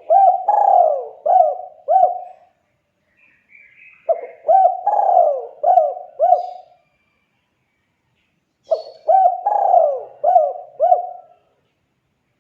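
Spotted dove (tekukur) cooing: three phrases of several coo notes each, a couple of seconds apart. This is the bird's territorial call, used to draw a rival. Faint higher chirps come between the first two phrases.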